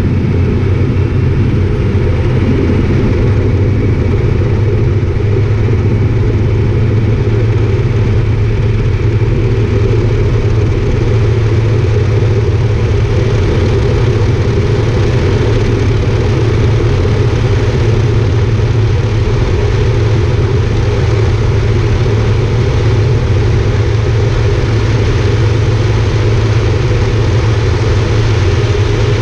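Air Tractor 402B's Pratt & Whitney PT6A turboprop and propeller running at high power during a heavy-weight take-off roll, heard from inside the cockpit as a loud, steady drone.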